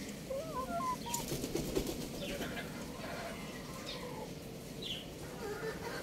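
Young chickens giving a few short, warbling chirps within the first second, followed by scattered light ticks and scrapes as the birds peck and scratch at a concrete floor.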